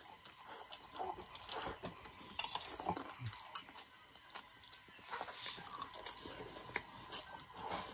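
Scattered light clinks and scrapes of cutlery against plates during a meal of fried noodles.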